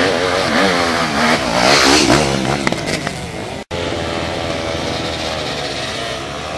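Several enduro dirt bike engines revving hard, their pitches wavering up and down under heavy load on a steep muddy climb. About three and a half seconds in the sound cuts abruptly to a steadier engine held at high revs.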